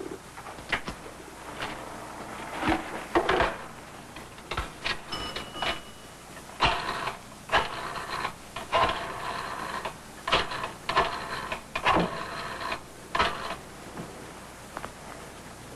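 Coin payphone with a rotary dial being worked: scattered knocks and clicks as the handset and phone are handled, then several runs of rapid whirring clicks about a second long as the dial is turned and spins back.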